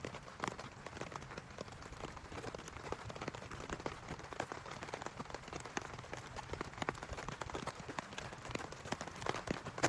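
Heavy rain falling on a surface, a steady hiss with many close, individual drop impacts.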